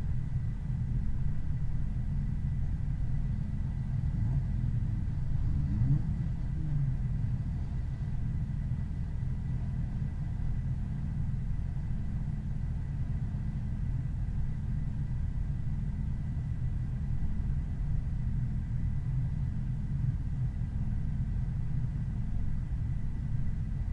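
Car driving at a steady moderate pace, a continuous low rumble of engine and road noise, with a brief rise and fall in pitch about five to seven seconds in. A faint, steady, high-pitched whine sits above the rumble.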